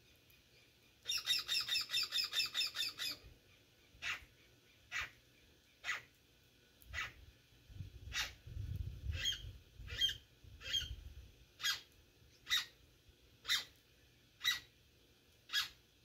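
Bird calls: a fast chattering run of about a dozen sharp notes, then single sharp calls repeated about once a second. A low rumble rises under the calls in the middle.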